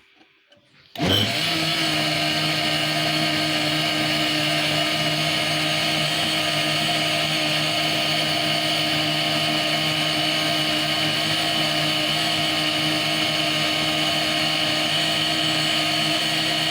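Electric blender switching on about a second in and running at one steady speed, blending fruit and milk into a smoothie. It makes a loud, even motor whine that keeps the same pitch throughout.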